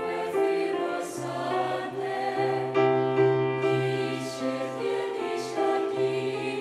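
A choir singing slow, held chords in several parts, with a low bass line beneath; a few sung 's' sounds hiss through.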